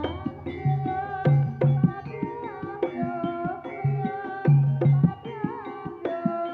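Javanese gamelan music accompanying a barongan dance: deep kendang drum strokes land in quick clusters under a melody with a wavering pitch, over a steady layer of gamelan tones.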